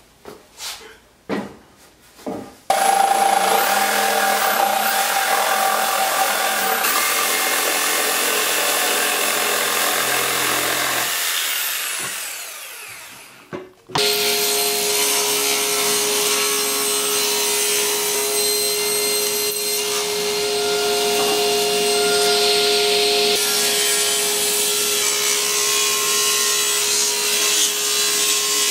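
A table saw ripping a 2x6 board lengthwise in half, the blade cutting through the wood. A few light knocks of the board being handled come first. About eleven seconds in the saw winds down to quiet, then it is suddenly running and cutting again, steadily, to the end.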